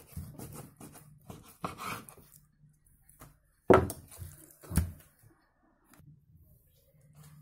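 Kitchen knife slicing raw chicken fillet on a wooden cutting board: a quick run of taps as the blade meets the board, then two louder thunks around the middle.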